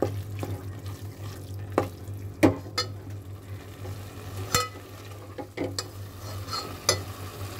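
Steel spoon scraping and knocking against a metal pot while stirring minced meat in green masala over high heat. Several sharp clinks come at irregular intervals over a faint sizzle and a steady low hum.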